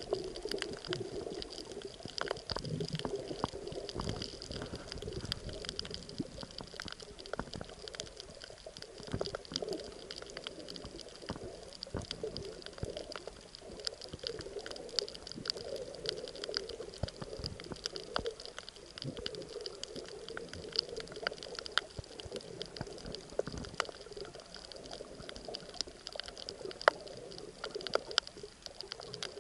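Underwater sound heard through a camera's waterproof housing: a muffled, shifting wash of moving water with many scattered sharp clicks.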